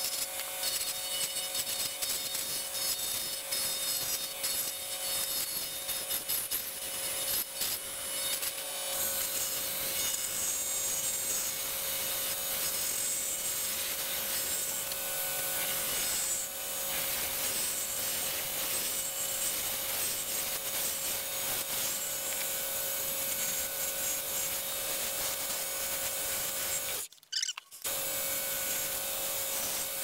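A pen blank spinning on a wood lathe, cut by a hand-held turning tool: a continuous scraping hiss of the tool on the blank over a steady hum. It cuts out briefly near the end.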